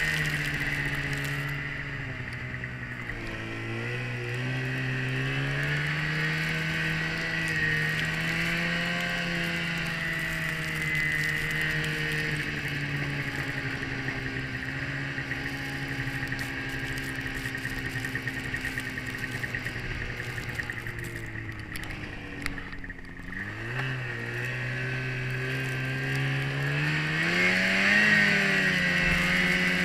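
Polaris 550 snowmobile's two-stroke twin engine running under way, its pitch easing off about three seconds in, dropping sharply with a throttle lift past the middle, then climbing again as it revs back up near the end, with a steady higher whine above the engine note.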